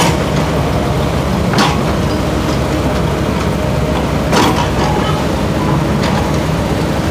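Hino truck's diesel engine running steadily at idle, a low rumble, with two short hisses, one about a second and a half in and another at about four and a half seconds.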